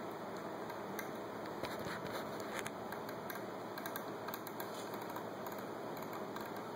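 Steady hiss with scattered faint, irregular clicks of laptop keys being pressed.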